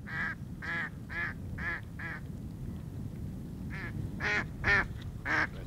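Live mallard call ducks quacking: a run of five quacks, a pause of about a second and a half, then four more. These are decoy ducks calling to draw wild ducks in to land.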